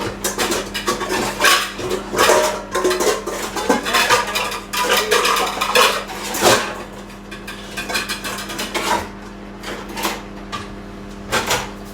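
Dishes and cutlery clattering and clinking as they are handled and put away, in many irregular knocks, over a steady low hum.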